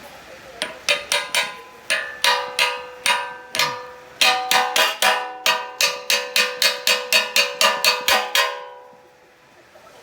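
Background music of bell-like struck notes at a steady beat, fading out near the end.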